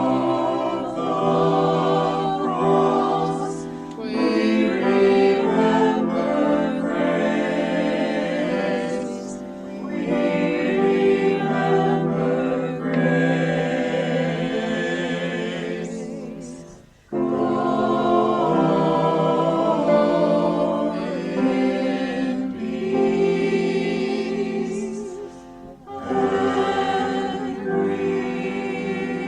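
A choir singing a slow sacred piece, in phrases with a short break about halfway through and a brief dip near the end.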